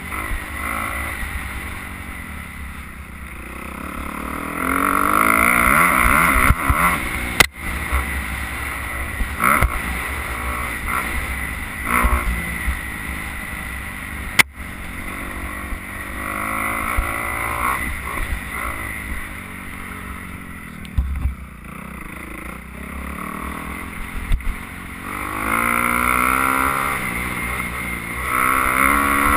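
Dirt bike engine revving up and down as the bike is ridden along a trail, with repeated rising surges of throttle, loudest around five to seven seconds in and again near the end. Wind buffets the microphone underneath.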